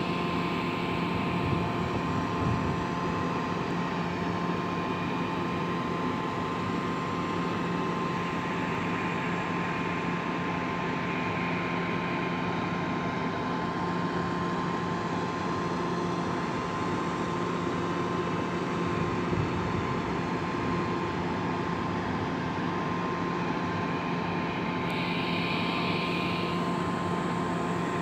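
Diesel engines of SANY mobile cranes running steadily under load during a tandem lift: a continuous drone with a steady high whine through it. A short burst of hiss comes near the end.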